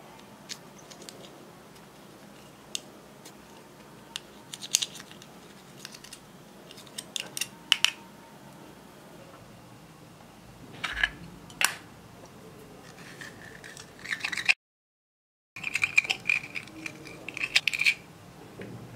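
Small metal spatula scraping and tapping pressed eyeshadow out of compact pans: scattered sharp clicks and short scratchy scrapes in clusters a few seconds apart, with a brief squeaky scrape near the end. The sound drops out completely for about a second midway.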